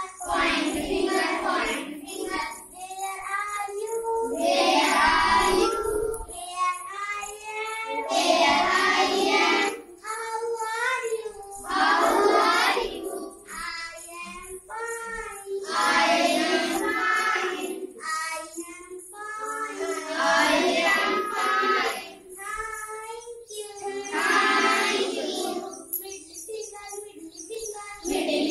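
A group of schoolchildren singing a song together, in sung phrases that swell and fall back every few seconds.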